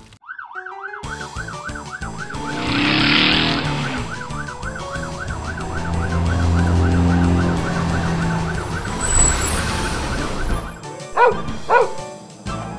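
Fire-truck siren sound effect: a fast warbling tone, about four rises a second, running for about ten seconds, with a low rumble under it in the middle and light music behind. Near the end come two short, quick rising chirps.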